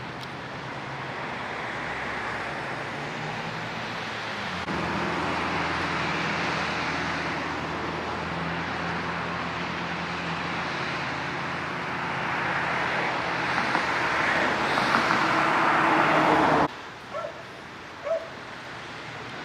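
A vehicle running with a low steady engine hum under a rushing noise that builds gradually, then cuts off suddenly about three seconds before the end, leaving two short faint sounds.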